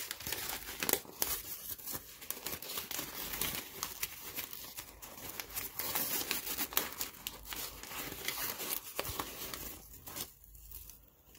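Newspaper wrapping crinkling and rustling as hands unfold it from around an egg, in dense bursts of crackles. It goes quieter about ten seconds in, once the egg is out.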